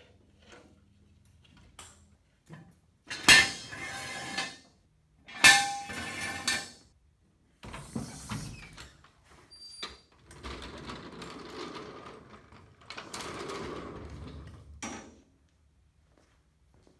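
Steel jack stands and a floor jack being handled on a concrete floor as a car is lowered. Two loud ringing metal clangs come a couple of seconds apart, followed by several seconds of rattling and scraping that stop shortly before the end.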